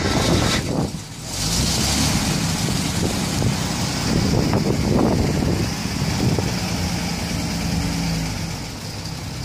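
1942 Chrysler Royal's flathead straight-six engine running at idle, a steady low engine note with a few small swells.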